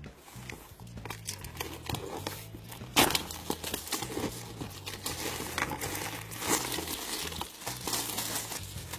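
Plastic packaging crinkling and tearing as a toy playset is unwrapped, in irregular crackles with a louder rip about three seconds in. Quiet background music plays underneath.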